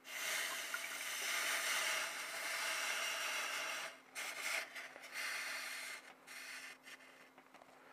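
Hot steel spanner, still around 500 °C, sizzling as it is quenched under a running tap. The hiss starts suddenly, is strongest for about four seconds, then breaks up and fades as the metal cools.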